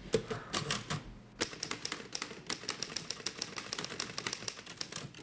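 Two manual office typewriters typed on at once: a rapid, clattering run of keystrokes, with a short lull about a second in.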